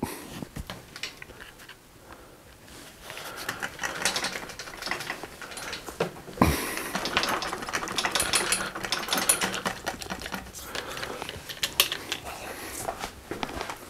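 Bicycle front linear-pull (V-) brake being worked by hand, its arms and cable clicking and rattling irregularly as freshly dripped oil works into the cable and noodle, with one louder knock about six and a half seconds in.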